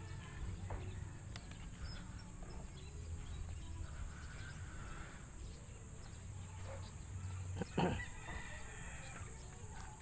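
Chickens clucking and a rooster crowing in the distance, faint, with a brief louder thump about eight seconds in.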